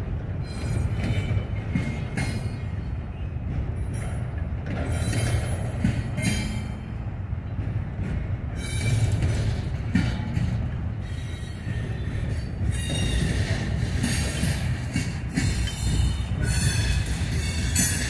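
Freight train cars rolling past on the rails: a steady low rumble of wheels, with high-pitched wheel squeal coming and going every second or two, more often in the second half.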